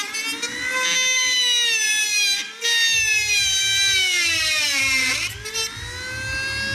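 Small high-speed handheld power tool cutting: a steady, high whine that falters briefly about two and a half seconds in, then sags sharply in pitch about five seconds in as the tool is pressed into the material, and picks up speed again.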